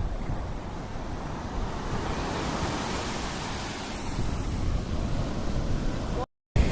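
Ocean surf washing onto the beach, swelling louder about two seconds in, with wind rumbling on the microphone. The sound cuts out for a moment near the end.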